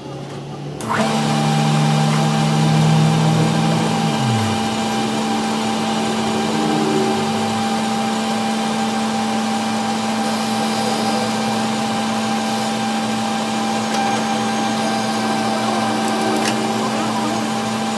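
An electric machine motor starts about a second in and runs steadily with a hum and a hiss, as a lower tone already running drops in pitch and dies away around four seconds in.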